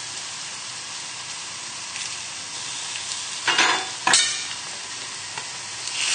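Fish frying in hot oil, a steady sizzle: whitebait deep-frying in a pan half-filled with oil and cod skin-side down in a hot frying pan. Two brief louder noises come a little past halfway, and the sizzle swells near the end.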